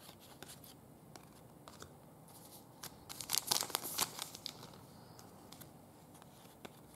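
Foil wrapper of a Panini Donruss soccer card pack crinkling and tearing open, with a dense burst of crackling about three to four seconds in and light rustles and clicks around it.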